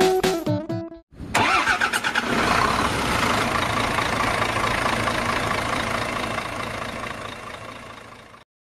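A short music phrase ends about a second in. An engine then cranks briefly, catches and runs steadily, fading out near the end.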